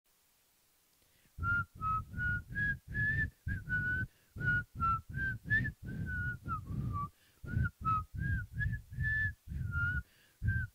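A person whistling a Christmas tune unaccompanied, in short separate notes at about three a second, each with a breathy puff. The whistling starts about a second and a half in.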